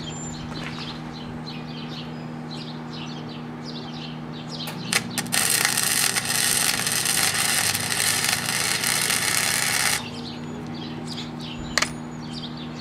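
Flux-core wire-feed welder arc, welding a nut onto a broken bolt: after a couple of short sputters about five seconds in, it crackles and hisses steadily for about five seconds, then cuts off. Birds chirp throughout, with a steady low hum while the arc is off.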